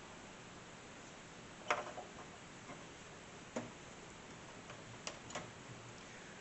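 A few separate sharp clicks and taps of small metal parts being handled on a desktop PC case, the loudest about two seconds in, over a low steady hiss.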